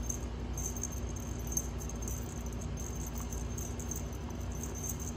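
A cat toy jingling faintly in small, irregular flicks over a steady low hum.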